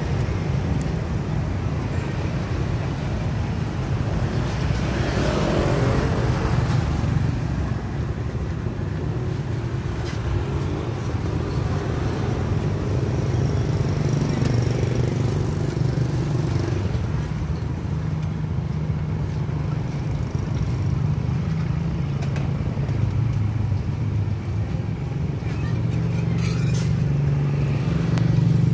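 Street traffic over a steady low hum, with one vehicle passing by about five to seven seconds in.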